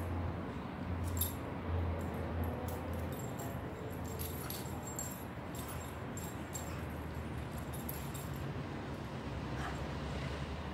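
Metal tags on a dog's collar jingling in quick, irregular clinks as the dog noses and pounces at a ball, stopping about eight seconds in. A steady low hum runs underneath.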